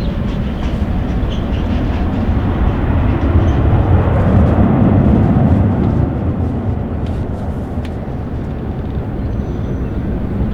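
Jet engine noise from a Ryanair Boeing 737 passing close by: a dense roar that swells to its loudest about four to five seconds in, then eases a little.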